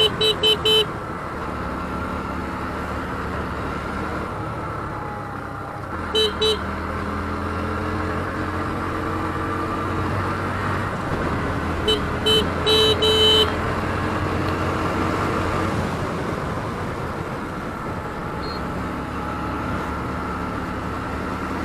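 Bajaj Pulsar NS125's single-cylinder engine running steadily while riding, heard from the bike. A horn beeps in quick short toots: a string of them at the start, two about six seconds in, and another string about twelve to thirteen seconds in.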